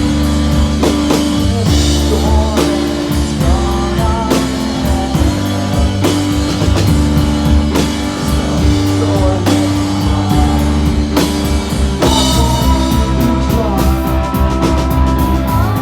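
Rock band playing live: a drum kit keeping a steady beat under sustained, distorted electric instruments and heavy bass.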